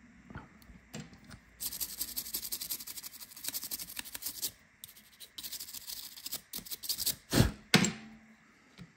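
Fast, crackly scratching and rubbing on a smartphone's parts during a repair, in two stretches, followed by two sharp knocks near the end.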